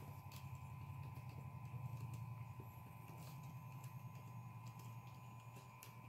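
Faint, irregular clicks of laptop keyboard keys being typed over a steady low hum.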